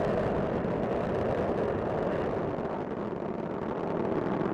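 Space Shuttle Discovery's solid rocket boosters and main engines during ascent: a steady, dense rocket roar that dips slightly in level partway through.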